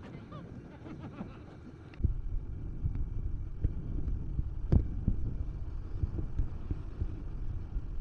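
Wind buffeting the microphone: a low, gusty rumble with irregular thumps, which jumps much louder about two seconds in.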